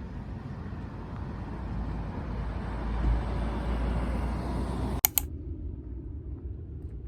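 Steady low rumbling background noise that swells, broken by a sharp double click about five seconds in. After the click the noise is quieter and muffled.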